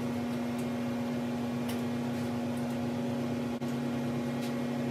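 Steady electrical hum from a running machine, with one strong low drone and a few faint ticks over it.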